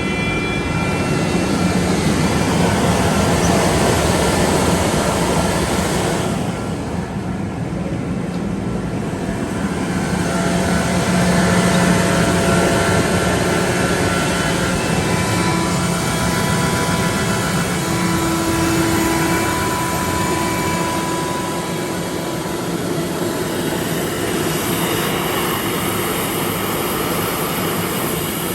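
Kaeser AS-31 rotary screw air compressor, driven by its 25 hp three-phase electric motor, running loudly and steadily with a dense machine noise and a steady low hum. The hissing top end drops back for a few seconds about six seconds in, then returns.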